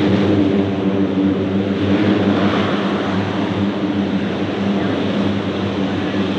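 Lockheed MC-130J Commando II's four Rolls-Royce AE2100 turboprop engines running at low power as it taxis: a steady low propeller drone with a rushing turbine hiss above it.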